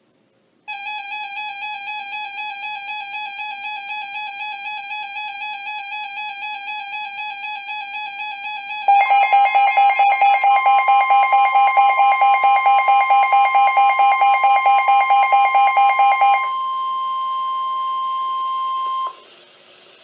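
Weather radio alert tones. A warbling electronic alarm runs for about eight seconds, then gives way to a rapid beeping of about five beeps a second. Under the beeping comes the steady NOAA Weather Radio warning alarm tone, which goes on alone after the beeping stops and cuts off near the end.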